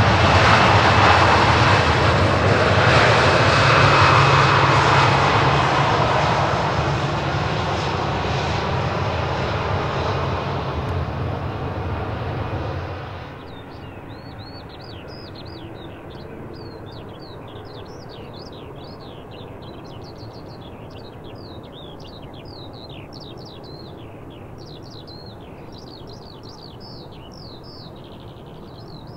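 Boeing 737-700's CFM56-7B jet engines running loud as the airliner rolls down the runway after landing, gradually fading. About thirteen seconds in the sound drops suddenly to a faint distant engine hum, with many birds chirping over it.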